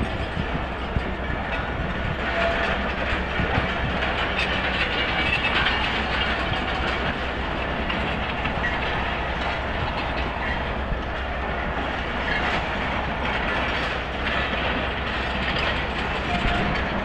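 Pakistan Railways passenger coaches rolling slowly past on the track, their wheels clicking over the rail joints under a steady low rumble.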